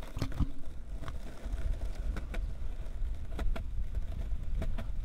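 Longboard on large 6-inch wheels rolling fast down a concrete path, with a steady low rumble of rolling and wind on the microphone. Short clacks, several in close pairs, come as the wheels cross cracks and joints in the pavement.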